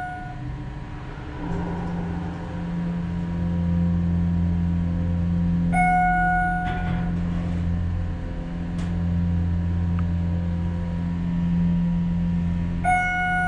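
Schindler MT/300A hydraulic elevator starting its ride up, its dry-mounted pump motor setting in with a steady low hum about a second and a half in. A floor-passing chime sounds twice over the hum, about six seconds in and near the end.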